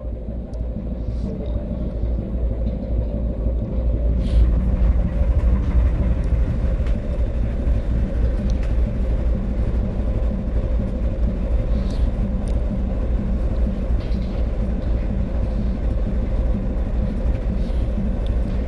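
A boat's engine running, a steady low rumble with a faint regular pulse, building up over the first few seconds.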